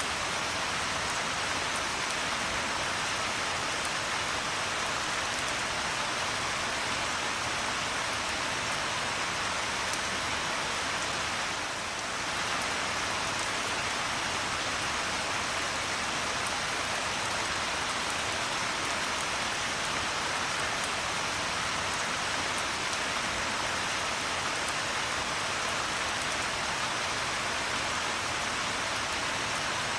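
Steady rain falling, an even hiss of many drops on a surface, with a brief dip in level about twelve seconds in.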